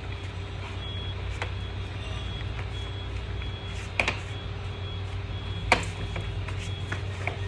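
A few sharp clicks and knocks, the loudest two about four and six seconds in, as the aluminium pole frame of a folding camp chair is pressed into its Cordura seat. A steady low hum runs underneath.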